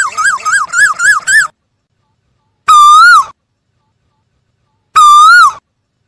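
Asian koel calling loudly: a quick run of about six short notes that each rise and fall in pitch, then two longer swooping notes about two seconds apart.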